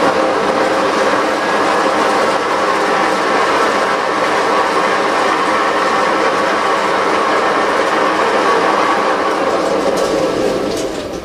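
Forced-air pet grooming dryer running steadily, a loud rush of air with a motor whine, dying down near the end as it is switched off.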